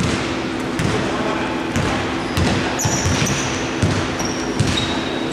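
A basketball being dribbled on a wooden court: a string of separate bounces at an uneven pace, with a few short, high sneaker squeaks on the floor about three seconds in and again near the end.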